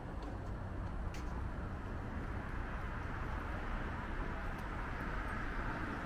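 Steady road traffic noise, a low rumble with a hiss that swells a little about halfway through as a vehicle passes.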